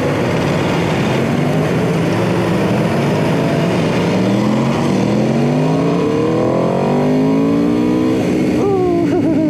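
Aprilia RSV4 RF's V4 engine accelerating hard from a stop, its note climbing in pitch in long rising pulls, with wind noise over it.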